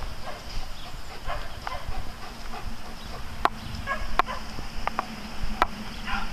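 A group of dogs playing together, with scattered short barks and a few sharp clicks in the second half.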